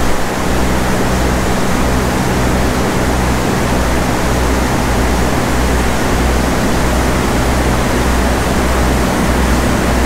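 Heavy monsoon rain pouring down: a loud, steady, even hiss with no letup, over a low steady hum.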